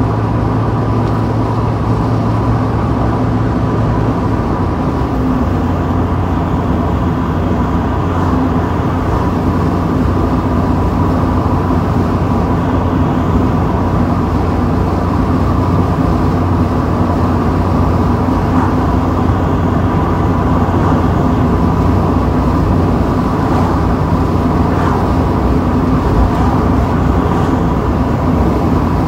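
Mazda Miata's four-cylinder engine droning steadily at cruising speed, under heavy wind and road noise in the open-top cockpit. The engine note drops slightly about four seconds in.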